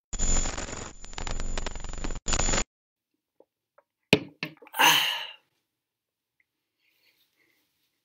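A long, loud, rough burp after gulping from a can, lasting about two and a half seconds with a brief catch near the end. About four seconds in comes a short, sharp, breathy vocal outburst.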